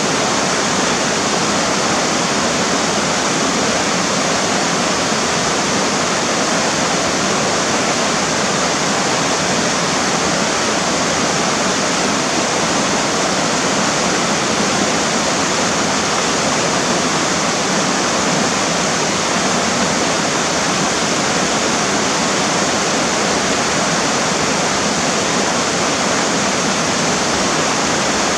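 River water flowing in a steady, unbroken wash of noise that does not change over the whole stretch.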